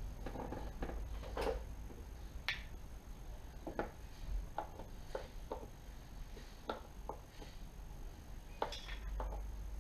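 About a dozen light clicks and taps at irregular spacing, from hands and a screwdriver working the screws and plastic panels of a scooter's handlebar fairing.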